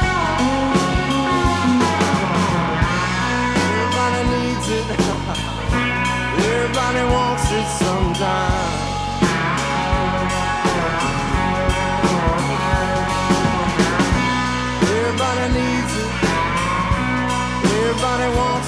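Live psychedelic-tinged rock band playing an instrumental passage with no vocals: guitar over bass and drum kit.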